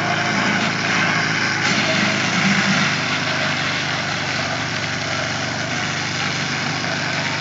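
Portable fire pump's engine running steadily under load, driving water through the hoses to the spraying jets.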